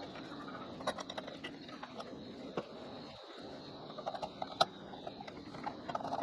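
Scattered light clicks and taps of small hardware being handled while a ceiling fan is assembled, over a steady background hiss; the sharpest click comes a little past halfway.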